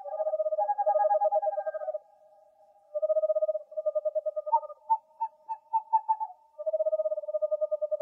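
Owl calling: rapid trilled phrases of one to two seconds each, separated by short pauses, with a run of quick separate higher notes in the middle.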